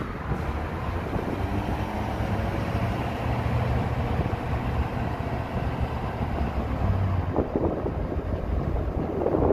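Wind buffeting an open-air microphone over the steady low rumble of a Ford F250 pickup driving on the road, heard from a camera mounted in the truck's open bed. There are a few brief knocks near the end.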